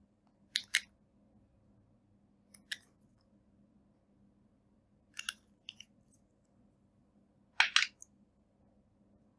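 Short sharp clicks and taps of a small glass bottle and its brush cap against a glass bowl as glitter colour is dabbed onto slime: a double click about half a second in, another click a couple of seconds later, a few more mid-way, and the loudest double click near the end.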